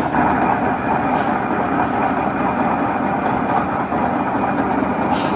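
Niles engine lathe with a 25 hp drive running steadily under power, its headstock spindle and 30-inch four-jaw chuck turning at 77 RPM.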